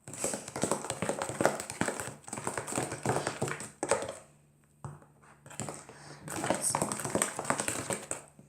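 Soap-and-borax slime being worked by hand in a container: a dense run of wet, crackly squishing and clicking, pausing briefly about halfway through and then starting again.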